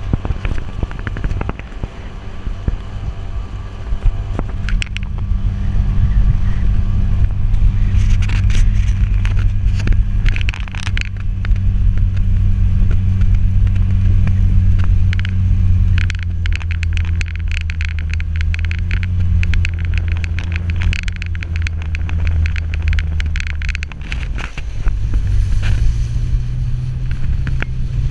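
Motorboat engine running steadily with water splashing and slapping against the hull. The engine note dips and changes pitch near the end.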